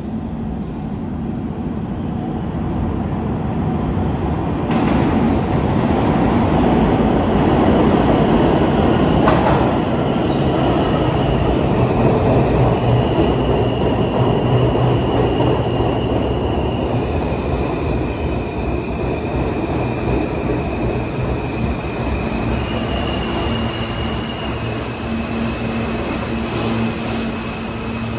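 R160 subway train running on the track: a dense rumble that grows louder over the first several seconds and then eases, with a sharp click about nine seconds in. High steady whining tones step between pitches through the second half.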